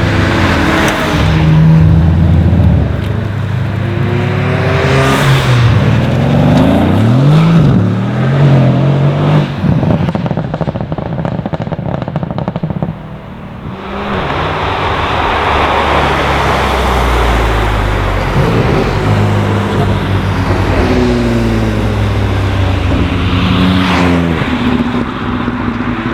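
Several cars passing at speed one after another, their engine notes rising and falling as they rev and go by.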